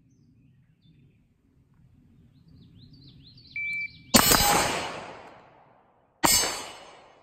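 Birds chirping, then a short high beep of a shot timer, followed at once by a gunshot from the 5.56 mm Knight's Armament SR-15 Mod 2 carbine and, about two seconds later, a single shot from the 9 mm Glock 19 pistol after the transition from rifle to pistol. Each shot echoes and fades over about a second.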